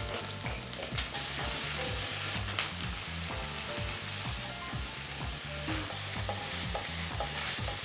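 Chopped onions and carrots sizzling steadily in olive oil in a frying pan as they are sautéed to soften, with a few brief scrapes of the stirring utensil.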